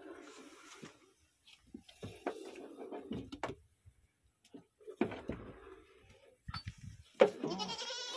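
A goat being hand-milked, with milk squirting in separate spurts into a steel pail. A goat bleats near the end.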